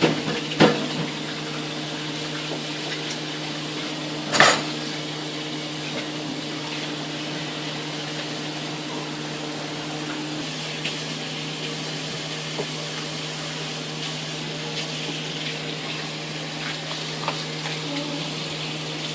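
Items in a refrigerator knocking and clinking as a toddler handles them: a sharp knock about half a second in and another about four seconds in, with a few faint clicks later, over a steady hum and hiss.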